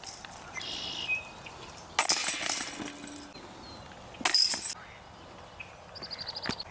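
Discs striking the hanging chains of a metal disc golf basket, the chains jangling: a longer jangle about two seconds in and a short one a couple of seconds later.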